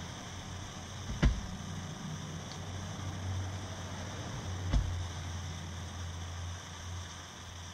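Two sharp knocks, about three and a half seconds apart, as a foam air filter is worked over its metal screen, over a steady low hum.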